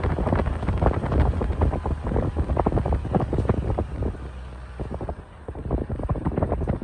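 Wind buffeting the microphone at a moving car's window, gusting irregularly over the low rumble of the car on the road, easing a little past the middle.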